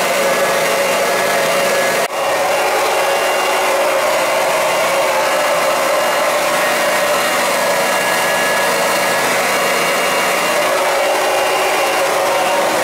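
Electric oil transfer pump running steadily with a constant motor whine, pumping heating oil from the old tank through a filter into barrels. The sound briefly cuts out about two seconds in.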